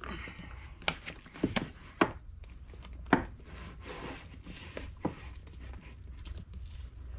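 Paperback manga volumes being slid along and pushed into place on a bookshelf: several sharp light knocks of books against the shelf and each other, with soft rubbing of the covers between them.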